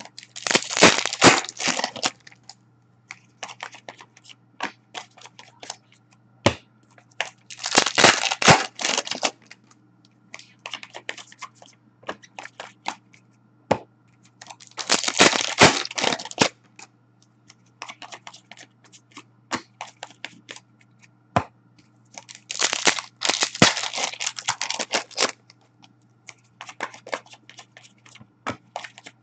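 Hockey card pack wrappers being torn open and crinkled in four bursts of about two seconds each, spaced several seconds apart. In between, scattered sharp clicks and taps of cards being handled and set down on a glass tabletop.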